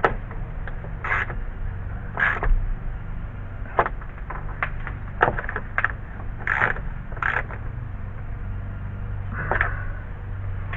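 Hand tools and sockets clinking and scraping: scattered sharp clicks and several short rasps, over a steady low hum.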